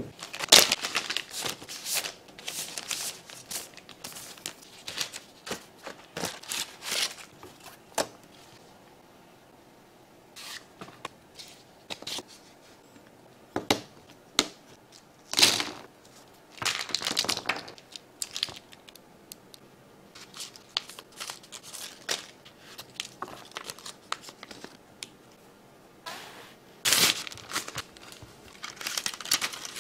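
Irregular crinkling and rustling of packaging mixed with sharp clicks and taps of keyboard parts being handled, including mechanical switches being pressed into a keyboard plate. The sounds come in short bursts, with a quieter stretch about a third of the way in.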